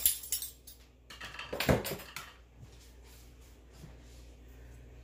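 Kitchen utensils being handled: a few sharp clicks, then a louder knock and clatter about a second and a half in, followed by faint small ticks.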